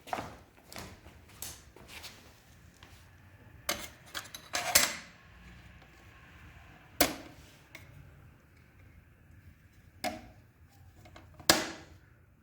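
Irregular clicks and knocks of small parts and tools being handled while building a model, with a louder knock every few seconds.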